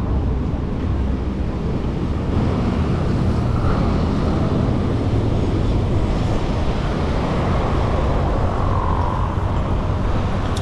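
Steady wind rush on the camera microphone of a moving bicycle, mixed with the hum of tyres rolling on asphalt.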